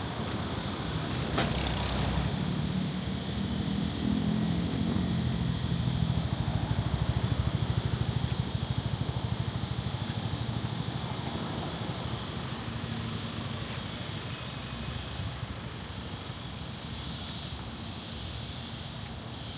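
A motor vehicle's engine passing close by over steady street noise, growing louder to a peak about seven seconds in and then fading.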